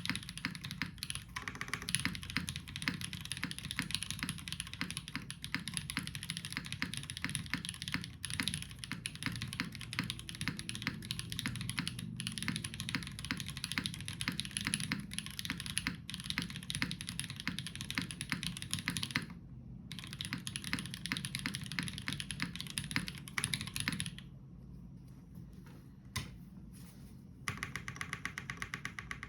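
Typing on a gasket-mounted Iron165 mechanical keyboard with JWK Tungsten switches on an aluminium plate and GMK keycaps. The key strikes come fast and steady, with a brief break about two-thirds of the way through. Near the end come a few sparse, quieter keypresses before fast typing picks up again.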